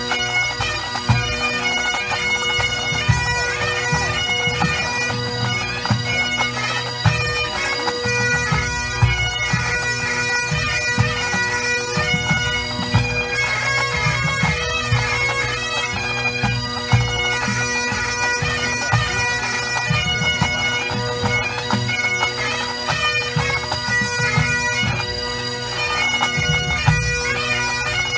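A full pipe band playing: Highland bagpipes carrying a tune over their steady drones, with the band's drums beating underneath.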